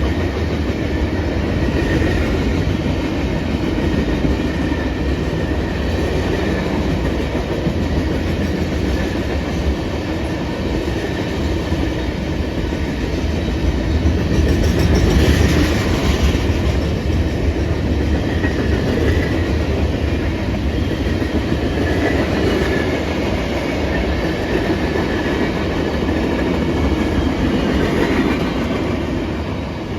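Freight train's cars rolling past at a steady pace: a continuous rumble of steel wheels with clickety-clack over the rail joints, briefly louder and sharper about halfway through.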